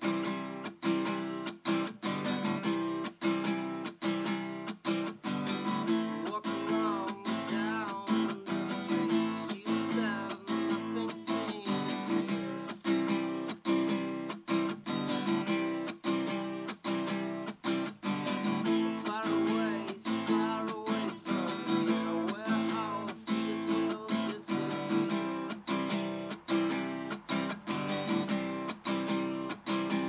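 Acoustic guitar strummed in a steady rhythm, its chords ringing between the strokes.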